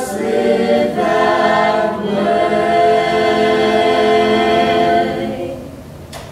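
Small mixed group of teenage voices singing together in harmony, moving through two short chords and then holding a long final chord that fades away near the end.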